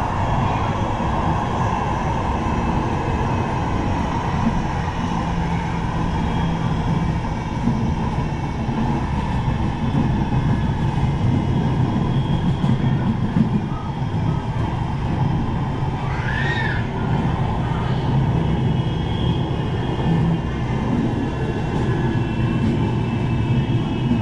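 Bombardier M5000 Manchester Metrolink tram running at speed, heard from inside the car: a steady rumble of wheels on rail with a faint steady whine above it. A brief high squeak about two-thirds of the way through.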